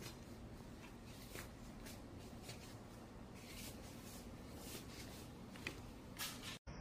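Faint soft rustling and handling noises, about one a second, over a low steady room hiss, cutting out abruptly near the end.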